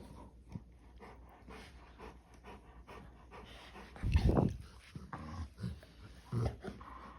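American Bully dogs play-fighting, panting, with a louder burst about four seconds in and a few smaller ones after.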